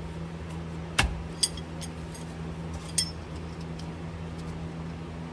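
Hand tools clinking against metal while the transmission drain plug on a semi truck is worked loose: one sharp clink about a second in and a few lighter clinks after, over a steady low hum.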